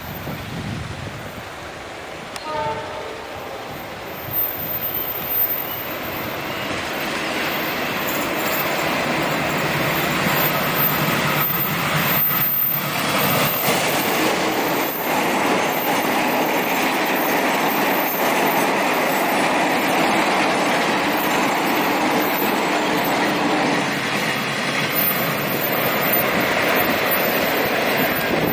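A short, distant train horn about two seconds in, then a diesel-hauled passenger train growing louder as it approaches and runs past, a steady rumble and clatter of wheels on the rails.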